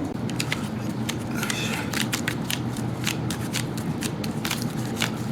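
Irregular crackling clicks of hands working with material during an air-conditioner installation, over the steady low hum of the freshly installed air conditioner running in cooling mode.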